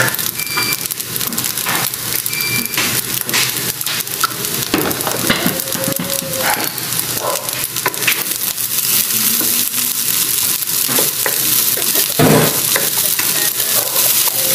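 Fried rice with corn sizzling in a hot pan while a spatula stirs and scrapes it.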